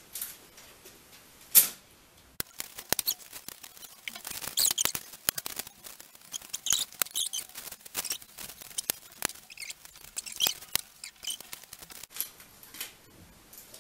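Adhesive tape being pulled off the roll in scratchy rasps and pressed onto a large board, with clicks and rustling as the board is handled against a wall. A sharp knock comes about one and a half seconds in.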